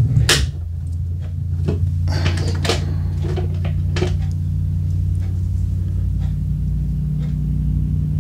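Several short plastic clicks and knocks as 9-volt batteries and a clear plastic battery case are handled, over a steady low hum.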